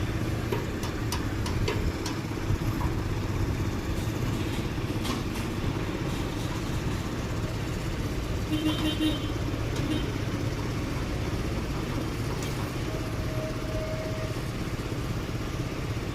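Crane engine running steadily while it lifts a precast concrete pillar segment. A brief high beep sounds about halfway through, and a short hum follows a few seconds later.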